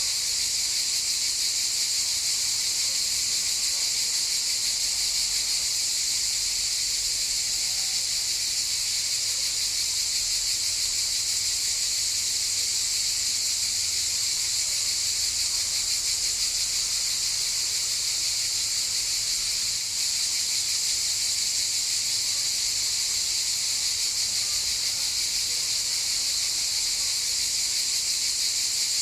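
A chorus of cicadas buzzing in one continuous, steady high-pitched drone, with a brief slight dip about twenty seconds in.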